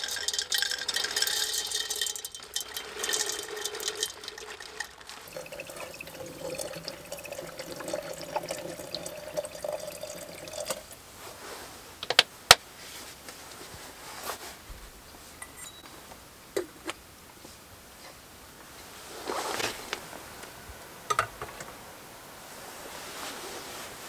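Paper bag crinkling as its dry contents rustle out into an aluminium teapot, then a steady pour of liquid into the pot lasting about six seconds. A few sharp clicks and knocks follow, the loudest about twelve seconds in.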